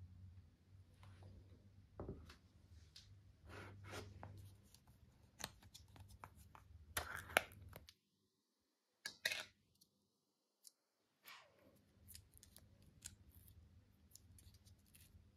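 Slime being handled, giving irregular soft clicks and crackly pops, with a short dead-silent gap about two thirds of the way through.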